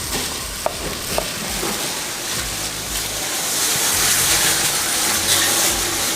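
A large pot of biryani water at a full boil, hissing and bubbling as rice goes in. Two light clicks come in the first second and a half, and the hiss grows louder about halfway through.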